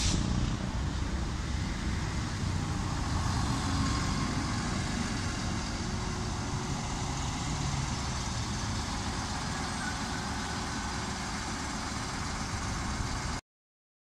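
SNCF X 73500 single-car diesel railcar running past on the line, a steady rumble of engine and wheels that eases slowly, with a brief sharp hiss at the very start.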